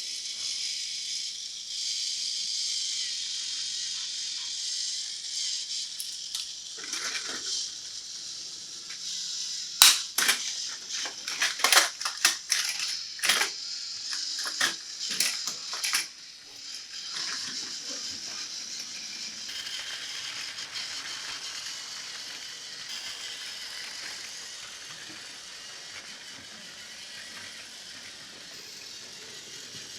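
Steady high whir with a burst of sharp plastic clicks and clatter in the middle, lasting about six seconds: plastic toys being handled and knocked together.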